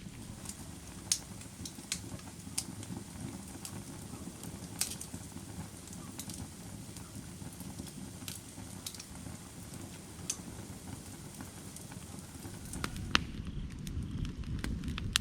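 Firewood burning: a steady low rush of flame with sharp crackles and pops scattered irregularly through it. One louder pop comes near the end.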